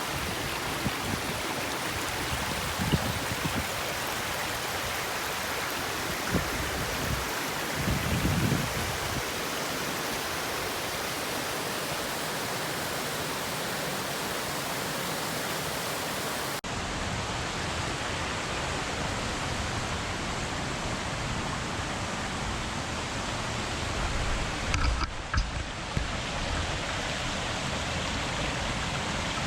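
Steady rush of water from a small waterfall, Zatō Falls. After a sudden cut about sixteen seconds in, the rushing water carries on with less hiss at the top, broken by a few low bumps near the end.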